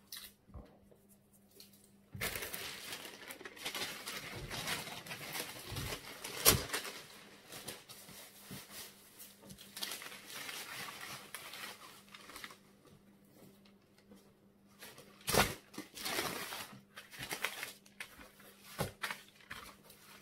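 Baking paper being unrolled, crinkled and handled, rustling for about ten seconds from two seconds in, with a sharp, loud crackle about six seconds in and another about fifteen seconds in, then scattered crackles as the paper is shifted under the dough.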